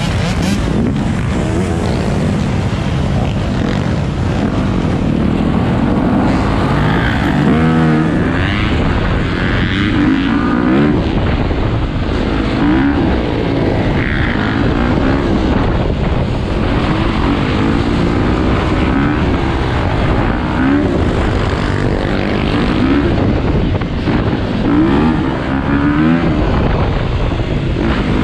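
Dirt bike engine running hard under the rider, revving up and falling back again and again as it accelerates and shifts, with more dirt bikes and four-wheelers running around it.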